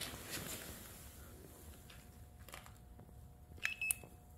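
Handheld infrared thermometer being triggered: a click and a short high beep about three and a half seconds in, followed by a second click, after faint handling rustles.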